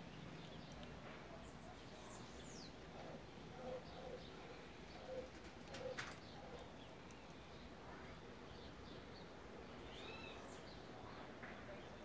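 Quiet outdoor garden ambience with birds: a thin, high chirp repeats about once a second, with a few other bird calls and some low cooing notes through the middle. A single sharp click sounds about six seconds in.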